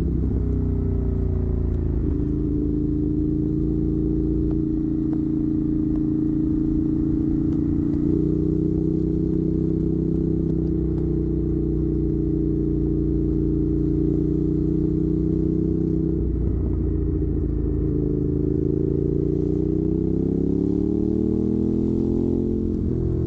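Ducati Monster 821's L-twin engine running through a Termignoni exhaust, a steady deep note whose pitch shifts in steps several times and, near the end, climbs and then drops back.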